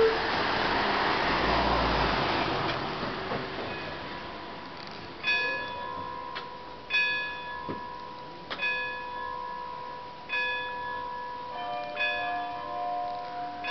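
A bell struck by the bellman figure on a giant Black Forest cuckoo clock. It is hit six times at an even pace, about once every one and a half to two seconds, each stroke left ringing. The strikes begin about five seconds in, after a rushing noise that fades out over the first few seconds.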